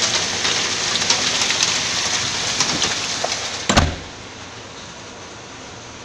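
Hailstones pelting a ship's deck and a tarpaulin cover: a dense patter full of sharp ticks. A loud thump comes about four seconds in, after which the sound drops to a quieter, duller hiss.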